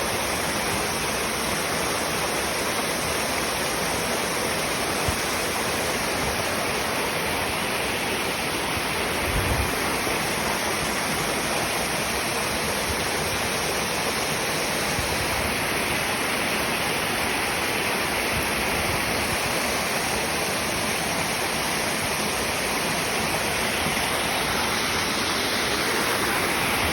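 Waterfall rushing: steady, even roar of falling water, with a couple of brief low thuds from wind on the microphone.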